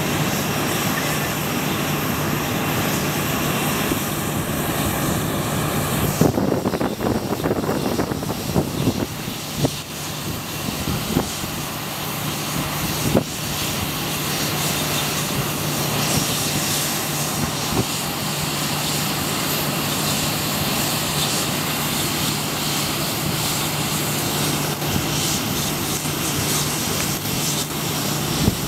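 Jet engines of a four-engined airliner (Airbus A340 type) running steadily on the runway, a constant whine over a broad rush. Uneven buffeting rumbles come in from about six to thirteen seconds in.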